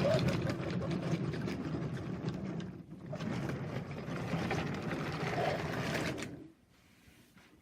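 Battery-powered toy train engine running along wooden railway track, its small motor whirring and the wheels rattling over the wood; it stops about six seconds in.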